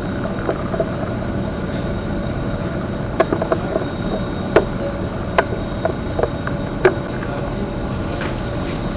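Steady background hum and hiss with a few sharp clicks between about three and seven seconds in.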